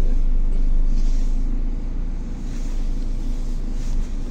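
Car interior noise while driving: a steady low rumble of road and engine, with a brief knock about four seconds in.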